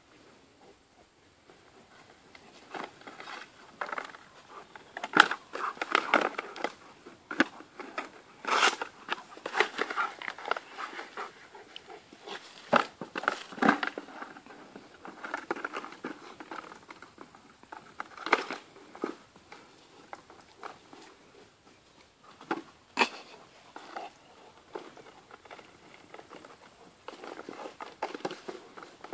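A dog chewing, knocking and pushing a plastic flowerpot about, with irregular sharp clicks and crinkly scraping of the plastic under its teeth and paws.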